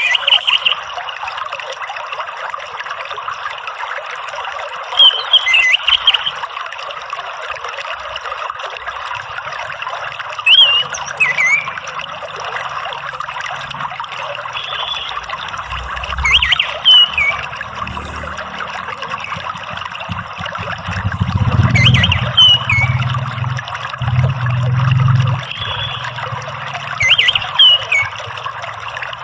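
Steady trickling, running water, with short whistled phrases of an orange-headed thrush (anis merah) cutting through about every five and a half seconds, six times in all.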